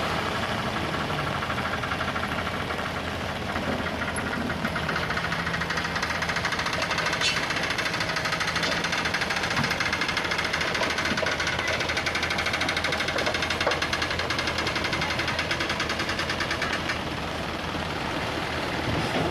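Komatsu PC75 excavator's diesel engine running steadily at work.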